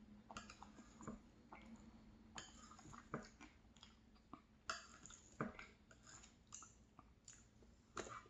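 Close-miked chewing and mouth sounds of a person eating ice cream with crumbled almond-raspberry tart: soft, irregular wet smacks and clicks.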